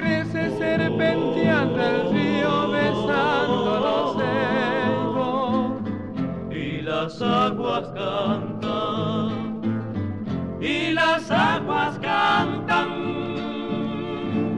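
Recorded Argentine folk song by a vocal group: voices singing with vibrato over acoustic guitar accompaniment.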